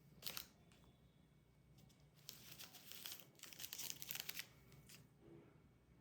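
Candy wrapper crinkling and tearing as it is opened: a brief rustle just after the start, then a longer stretch of fine crackling from about two seconds in until about four and a half.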